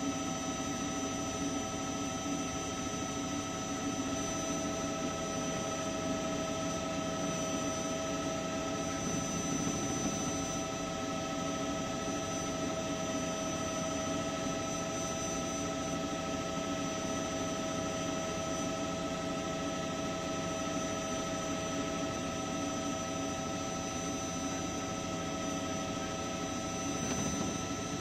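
News helicopter running steadily: a constant turbine whine made of several steady tones over an even low drone.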